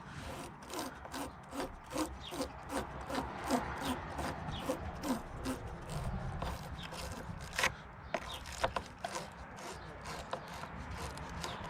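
Battery post cleaner scraping back and forth on a lead battery post, cleaning off corrosion: evenly paced rasping strokes, about two a second, for the first half, then more scattered scrapes and a few clicks.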